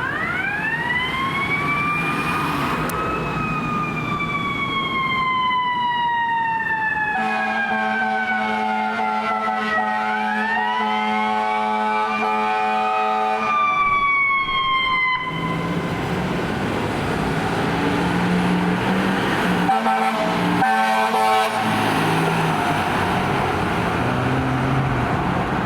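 Fire squad truck's siren wailing, rising and then slowly falling twice. A long air horn blast sounds over the middle of the second wail, and two short air horn blasts come later over road noise.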